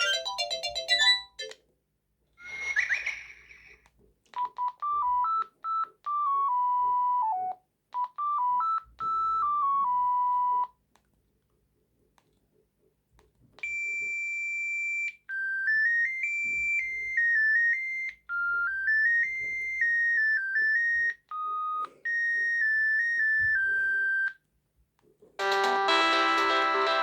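Samsung SGH-T100 mobile phone playing a series of ringtones. A fuller tune ends about a second in, followed by a short sweeping sound. Then come two simple single-line electronic melodies separated by a pause of a few seconds, and a fuller tune starts near the end.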